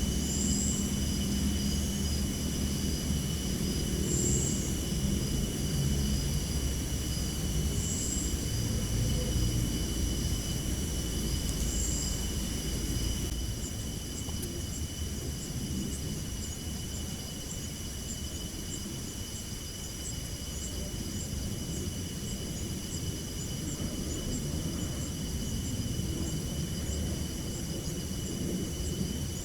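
Outdoor ambience: a steady low rumble like distant traffic under several thin, steady high-pitched tones. A short high chirp repeats about every four seconds for the first half, then gives way to faint rapid ticks.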